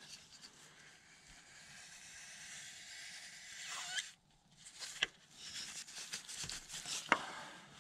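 Faint rustling and scraping of rubber-gloved hands working a hose and ratchet at a differential fill hole, with two sharp clicks, one about five seconds in and another two seconds later.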